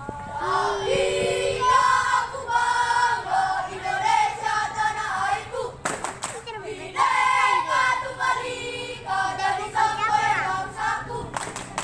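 A group of young boy scouts singing and chanting a yel-yel (scout cheer) in unison. Two sharp hits cut across it, about halfway through and near the end.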